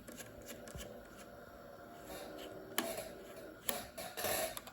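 Screws being undone on the RAM access door of a 27-inch 2011 iMac: faint ticks and scrapes of metal on metal, a sharp click about three seconds in, then louder scraping near the end.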